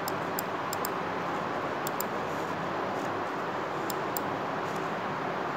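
Steady background hiss, with faint sharp clicks now and then, some in quick pairs.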